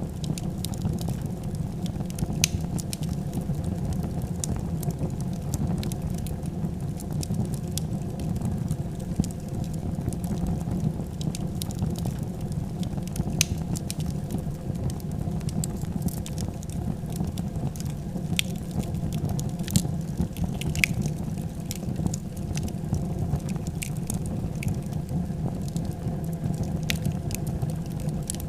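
Fire burning, with a steady low rumble of flames and irregular sharp crackles and pops scattered throughout, a few louder than the rest.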